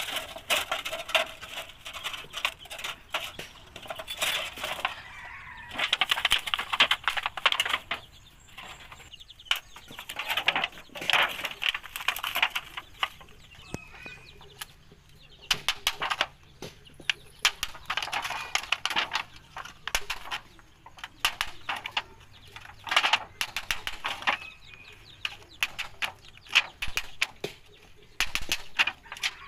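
A claw hammer tapping a nail through a rusty galvanized iron sheet, punching holes along its edge. The sharp metallic taps come in quick runs of several seconds, with short pauses between them.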